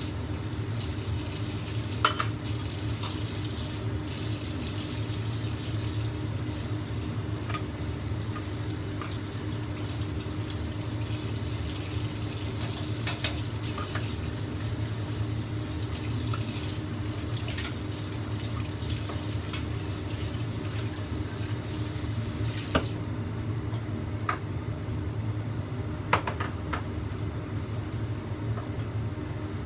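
Covered stainless-steel wok steaming on a gas burner: water boiling under the lid makes a steady hiss over a low hum, with a sharp click every few seconds.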